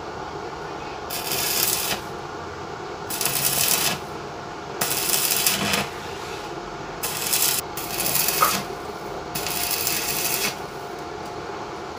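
Stick-welding arc from a Kenmax KM MIG-200 Mini inverter welder in stick (MMA) mode, crackling as the electrode is struck on steel plate. It comes in about six bursts of roughly a second each, with short breaks where the arc goes out, over a steady hum.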